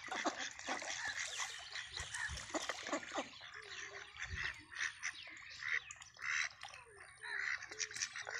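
A flock of domestic ducks dabbling and splashing in shallow water as they feed, a busy run of small wet splashes and bill clicks. Soft, low duck calls come in over the second half.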